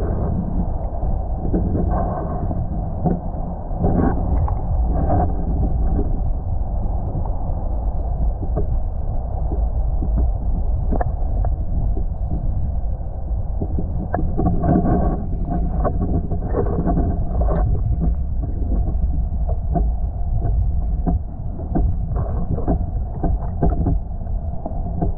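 Muffled underwater rumble picked up by a submerged camera in its waterproof housing, with scattered soft knocks and clicks.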